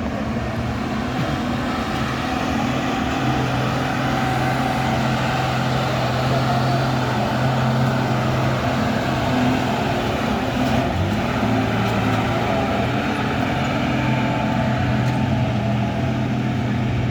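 Heavy diesel engines of buses and trucks moving slowly in traffic, a steady low hum over road noise.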